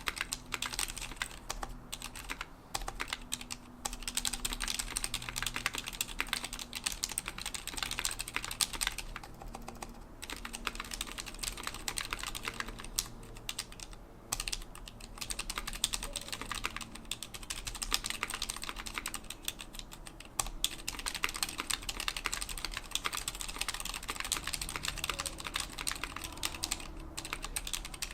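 Steady, fast typing on a 60% mechanical keyboard with lubed Cherry MX Silent Red linear switches, an aluminum case and plate, and PBT keycaps, giving dense, muted key strokes. A few brief pauses break the rhythm.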